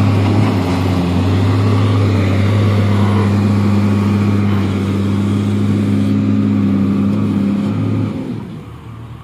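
Heavy diesel engine of an earthmoving machine running loud and steady at constant revs, its sound dropping away about eight seconds in.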